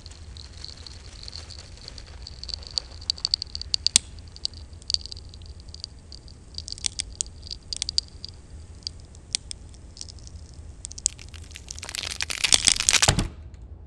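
Wood crackling and splintering in scattered sharp clicks, then a dense crunching burst of about two seconds near the end that cuts off suddenly: a wooden pencil being crushed and split between metal cutter jaws.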